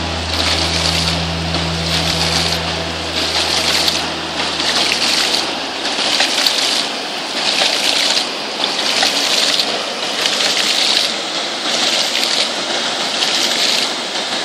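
Hydraulic ram pump running: water gushing and splashing out of its waste valve in a steady rhythm, about one surge every second and a bit, as the valve opens and slams shut each cycle.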